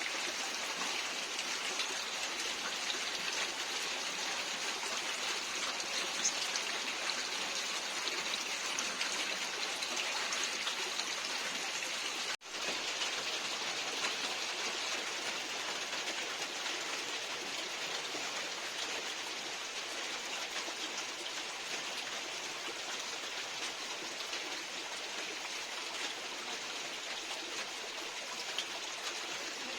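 Steady hiss of rain falling, with a couple of faint high bird chirps. The hiss breaks off for an instant about twelve seconds in.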